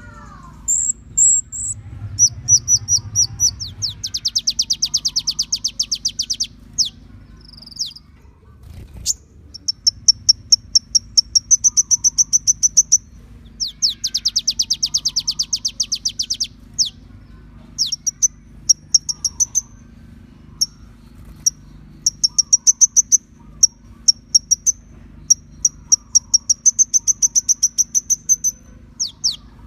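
Kolibri ninja sunbird song: quick series of sharp, very high chirps, broken by two long rapid trills, one about four seconds in and another about fourteen seconds in, over a faint steady low hum.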